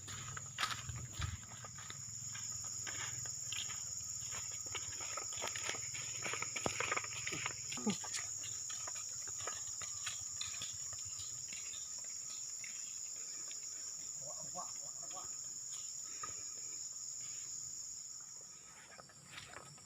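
Insects droning steadily at one high pitch, with many short crackles and rustles, thickest over the first eight seconds or so.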